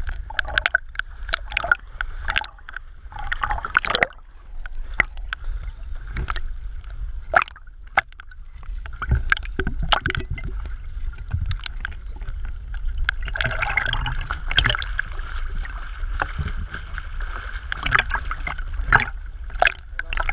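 Sea water lapping, splashing and gurgling around a camera held at the waterline, with many sharp water clicks over a low steady rumble. The splashing thickens for a few seconds past the middle.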